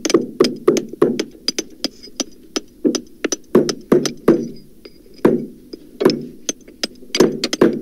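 Hammer blows, lowered in pitch to sound deeper, striking in a quick irregular run of about four knocks a second.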